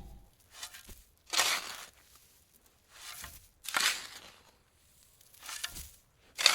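A slow series of short crunching scrapes, about one every second, with the loudest near the end.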